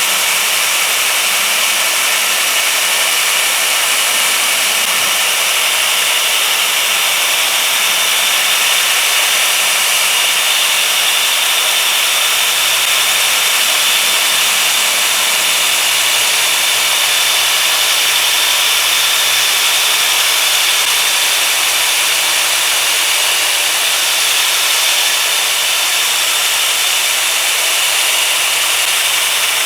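A slow-turning electric drill spinning an 80-grit sanding disc against rough, weathered wood: a steady, continuous abrasive hiss over the drill's motor, with no pauses.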